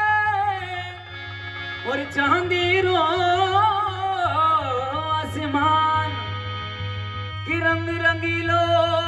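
Rajasthani folk singing with harmonium accompaniment: an ornamented sung line that bends up and down, giving way to long held notes about two-thirds of the way in.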